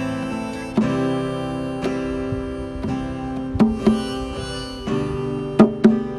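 Music: an acoustic guitar playing sustained chords, with sharp percussive hits scattered through, several close together near the end.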